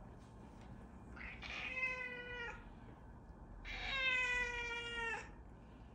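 A domestic cat meowing twice: two long, drawn-out meows of over a second each, the second a little longer.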